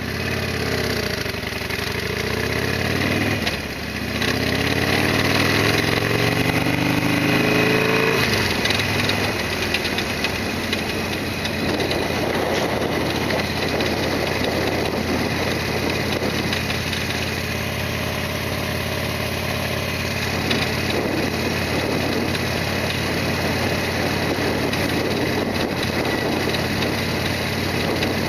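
Harley-Davidson Sportster XL1200R's air-cooled V-twin engine running: its pitch climbs from the start, dips briefly about four seconds in, climbs again, then settles into a steady run from about eight seconds in.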